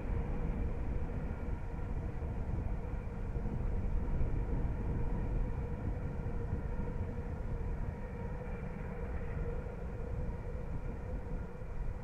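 Steam locomotive CFL 5519 hauling a train, heard from a distance as a steady low rumble with a few faint steady tones above it.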